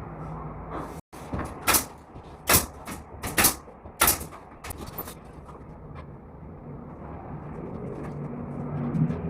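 About five sharp knocks over a few seconds, two of them in quick succession, from interior carpentry work on gypsum board and ceilings, over a steady low hum.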